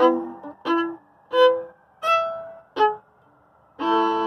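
Bowed violin playing five short separate notes, about one every 0.7 s, then a brief pause and a long held note near the end.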